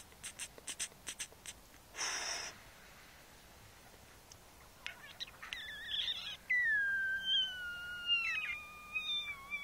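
Carpathian Shepherd puppy whining: short high whimpers about halfway in, then one long high whine that slowly falls in pitch. Before that, a quick run of light clicks and a brief rustle.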